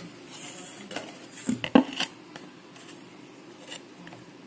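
A spoon scraping and knocking against a steel mixer-grinder jar as thick cake batter is scooped and poured out into a bowl: a handful of scattered clinks, the loudest just under two seconds in.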